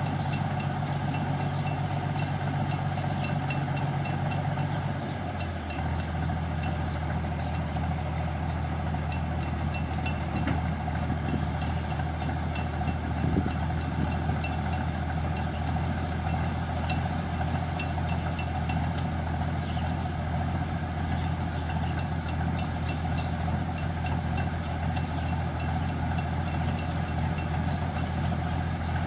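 Combine harvester's engine running steadily while its unloading auger delivers threshed rice grain into a lorry. The low drone shifts slightly about five seconds in, with a faint regular ticking above it.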